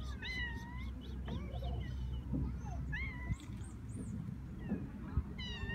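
Cat meowing: three short meows that rise and fall in pitch, one near the start, one about three seconds in and one at the end, over a low steady rumble.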